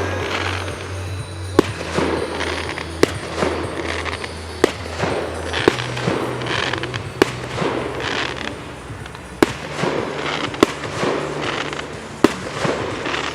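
Fireworks going off: a string of sharp bangs about once a second, with crackling between them.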